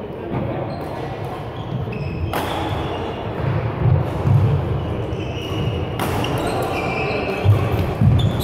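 Badminton doubles rally: sharp racket hits on the shuttlecock and heavy footfalls thudding on the court floor, with short shoe squeaks, echoing in a large sports hall.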